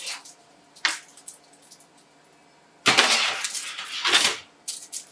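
A foil-lined metal baking tray sliding onto a wire oven rack: a scraping, rattling clatter lasting about a second and a half, starting about three seconds in. Two light clicks come before it.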